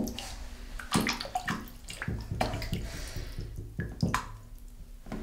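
A hand splashing and swishing in a bathtub full of water, in a string of short, irregular splashes about every second.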